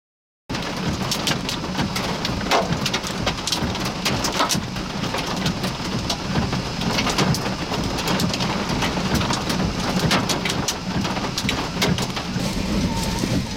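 Heavy storm rain pelting a vehicle, with many sharp ticks of hard drops striking it over a low steady rumble. The sound starts abruptly about half a second in.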